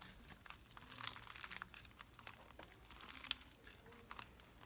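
Pink crunchy slime with foam beads being stretched and folded by hand, giving faint, irregular crackling crunches.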